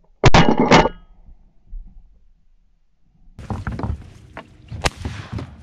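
Two shotgun shots about half a second apart, fired at ducks in flight. From about three seconds in there is a rustling noise with a single sharp click.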